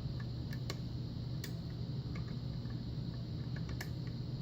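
Small, irregular metallic clicks from a lock pick working the pin tumblers of a six-pin Russwin lock, with a few sharper clicks about half a second in, around a second and a half in and near the end. The clicks sit over a steady low hum.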